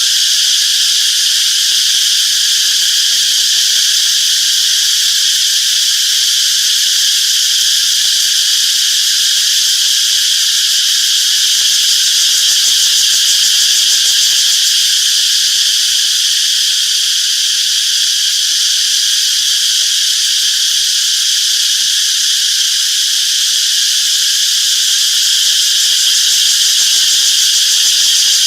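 Cicadas singing: a loud, steady, high-pitched drone that never breaks.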